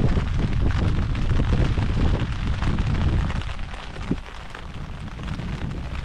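Wind buffeting the microphone: loud, gusty noise heaviest in the low end, easing somewhat about halfway through.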